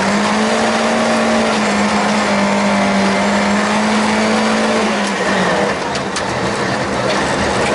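Volvo 142S rally car's four-cylinder engine heard from inside the cabin, pulling at high, steady revs over constant road and tyre noise. About five seconds in the revs drop and the sound dips briefly, then the engine picks up again.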